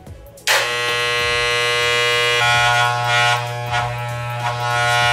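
Corded electric hair clippers switched on about half a second in and buzzing steadily, not yet cutting; the buzz shifts slightly in tone about two seconds in.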